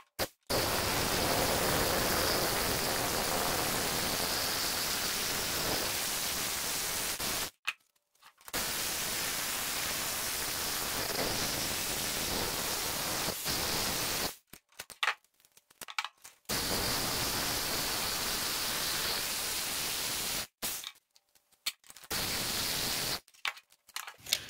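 Electric rotary hammer drill boring a hole about 12 cm deep into concrete masonry for a reinforcing bar. It is heard as a loud, even rushing noise in four runs with short stops between, the first about seven seconds long.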